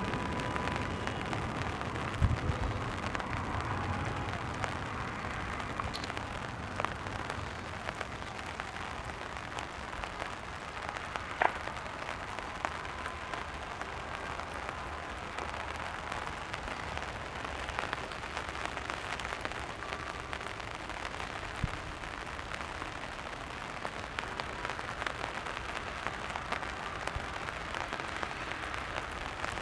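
A steady, noisy patter, with a few isolated sharp pops from fireworks, about two seconds in and again near the middle.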